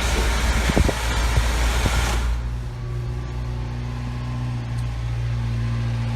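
A loud rushing noise that cuts off about two seconds in, leaving the 1991 Subaru Sambar's small four-cylinder engine idling with a steady low hum.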